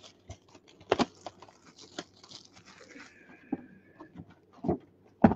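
Sealed, shrink-wrapped cardboard trading-card boxes handled by hand: an irregular string of clicks and knocks as they are picked up and set down, with crinkling of the plastic wrap. A sharp knock comes about a second in and another near the end.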